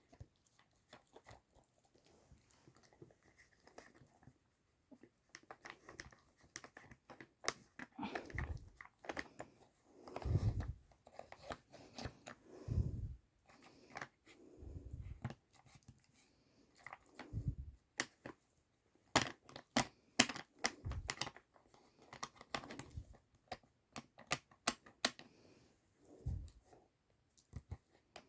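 A dog working a plastic treat puzzle toy, nosing and pushing its sliding pieces: scattered clicks and knocks with a few short low thuds, and now and then some chewing.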